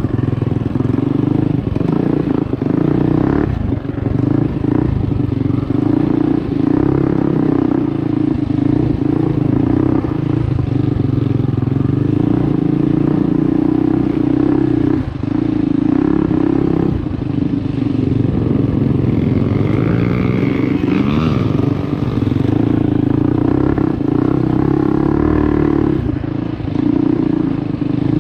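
Mini bike engine running under changing throttle as the bike rides a rough, rocky trail, with frequent clattering knocks from the bike over the rocks. About two-thirds of the way through, the engine revs up and back down.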